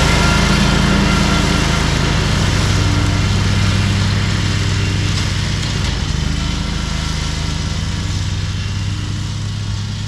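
Exmark X Series zero-turn mower running steadily at full throttle, its engine and cutting deck mulching tall, dry grass. The sound fades a little toward the end.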